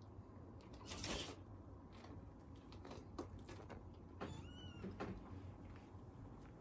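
A cat's short, high mew that rises and falls, a little past the middle. Around it are faint rustles and light scratches of cats moving on a carpeted cat tree.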